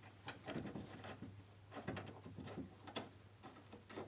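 Faint, scattered small clicks and taps with some rubbing: a steel bolt being handled and fitted by hand into a hole in the front suspension strut-brace bracket.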